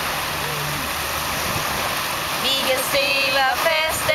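Small waves washing onto a sandy beach, a steady rush of surf. From about two and a half seconds in, a woman's high voice joins in over it.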